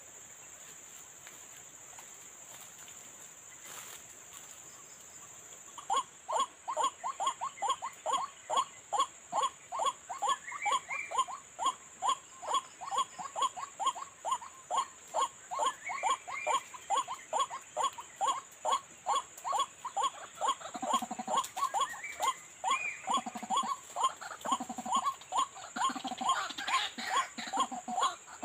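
White-breasted waterhen calls played through a bird-lure speaker: a loud, even run of repeated 'kwak' notes, about three a second, starting about six seconds in, with deeper notes joining from about twenty seconds. A thin steady high whistle runs under it all.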